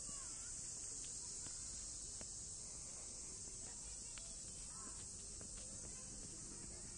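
Insects buzzing in a steady, high-pitched, unbroken drone, with a few faint chirps and light ticks.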